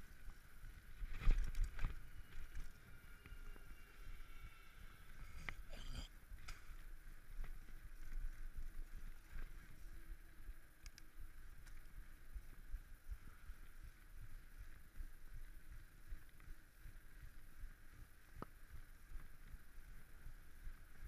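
Bicycle riding over paved sidewalk: a steady rumble of the tyres and frame. A few sharp knocks from bumps come about one to two seconds in and again around six seconds in.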